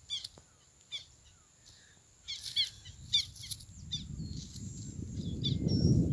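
Small wild birds chirping in short, high calls, some in quick runs. In the last two seconds a low rustling handling noise builds up and becomes the loudest sound as the shot ground dove is picked up off the dirt.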